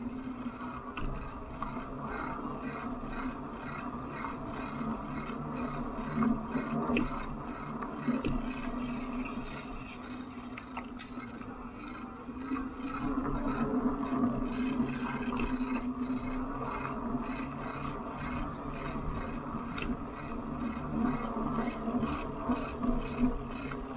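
Electric bike riding on a paved path: the steady hum of its motor with tyre and frame noise, and a fast, even ticking. It gets a little louder about halfway through as the bike speeds up.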